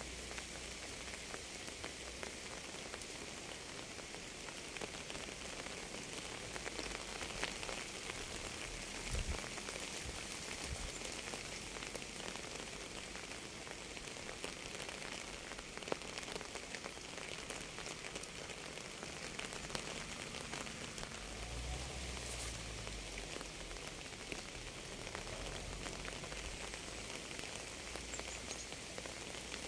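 Steady rain falling, an even hiss with scattered sharper drop ticks, and a brief low rumble twice, about a third of the way in and again past two-thirds.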